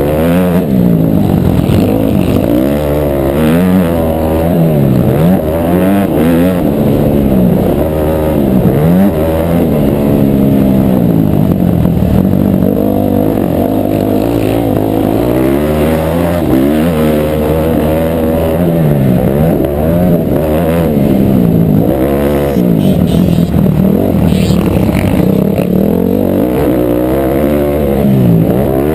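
Motocross bike engine heard from onboard, revving up and dropping back again and again as the rider accelerates down straights and shuts off into turns.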